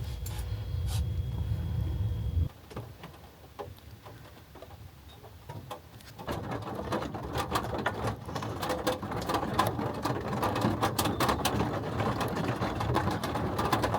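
Low rumble of thunder that stops abruptly about two and a half seconds in. From about six seconds, rain patters on the campervan roof as a rapid, dense run of taps that grows heavier.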